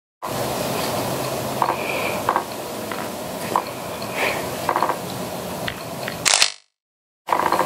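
Steady hiss of outdoor background noise with scattered light clicks and scrapes. It cuts out to complete silence twice for about half a second, each time just after a short, loud hiss.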